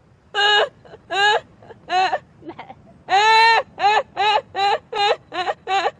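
A young woman laughing hard in a string of high-pitched whoops, each rising and falling in pitch, with one longer held whoop about three seconds in and the whoops coming faster toward the end.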